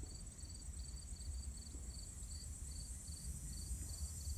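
Insects calling: a steady high-pitched trill, with a second insect chirping about four times a second over it. A low rumble runs underneath.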